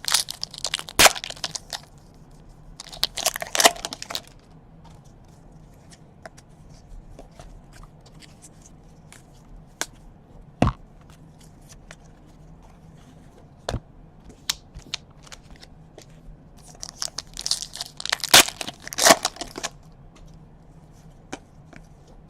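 Foil trading-card pack wrappers being torn open and crinkled, in three bouts of rustling: near the start, about three seconds in, and for a couple of seconds near the end. Scattered light clicks and taps come between the bouts.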